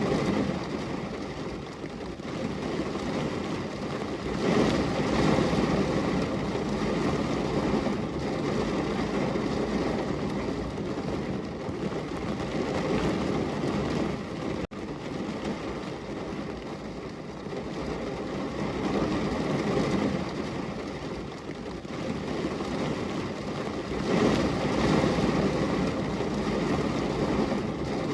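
Heavy rain pouring against a window, a dense steady hiss that swells and eases in waves, with a momentary dropout about halfway through.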